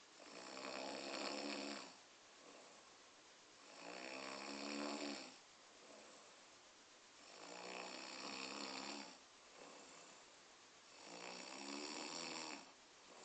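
A person snoring in deep sleep: four long, pitched snores, about one every three and a half seconds, with quiet breathing between them.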